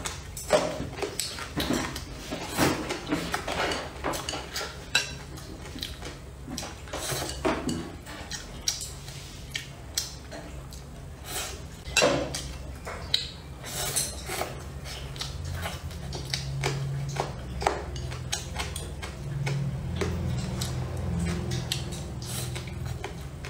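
Close-up eating sounds: chopsticks clicking against a ceramic bowl in a run of sharp, irregular clicks, with fried rice noodles being slurped and chewed.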